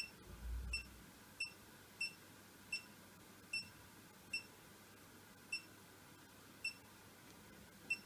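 Siemens iQ700 washing machine control panel beeping as its program settings are changed: about ten short, high beeps at uneven intervals, with a low thud early in the first second.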